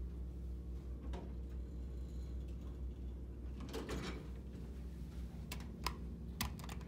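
Elevator car doors sliding shut about four seconds in, followed by a few sharp clicks near the end, over a steady low hum.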